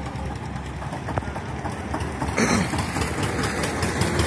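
Eicher 241 tractor's diesel engine running steadily as its front loader bucket works into a sand pile, with a short clatter about two and a half seconds in.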